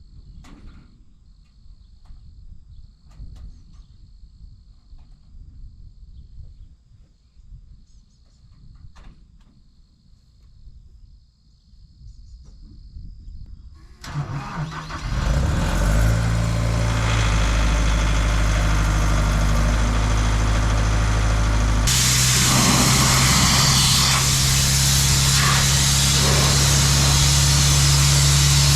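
An engine cranks and starts about halfway through, settles into a steady run, then steps up to a louder, higher level near the end. Before it starts there is only a faint low rumble.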